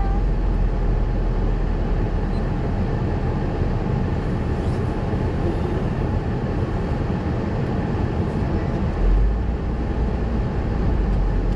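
Car driving, heard from inside the cabin: a steady low rumble of engine and road noise, with one brief louder low bump about nine seconds in.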